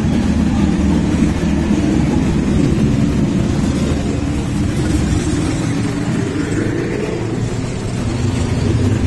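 A steady stream of motorcycles riding past, many engines running together without a break.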